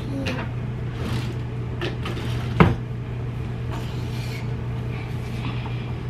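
A few brief hairbrush strokes through a child's short hair, with a single sharp knock about two and a half seconds in, over a steady low hum.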